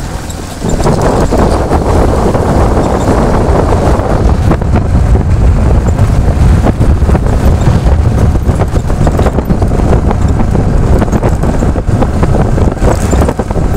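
Wind buffeting the microphone of a phone on a moving motorcycle, a loud steady rumble with the bike's running and road noise underneath.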